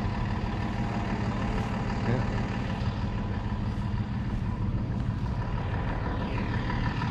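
Large truck engine idling steadily, a low, even drone.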